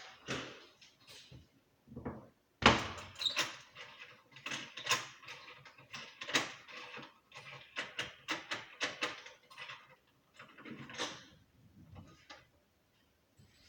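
Knocking on a door: a run of sharp, irregular knocks, the loudest about two and a half seconds in, going on for several seconds before thinning out near the end.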